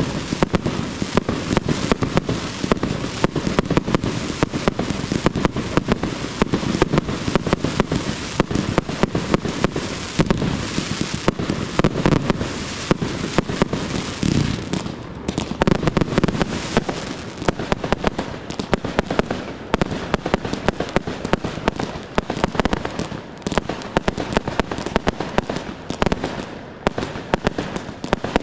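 Aerial firework shells bursting and crackling in a dense barrage: a rapid, unbroken run of bangs and crackles with no pauses.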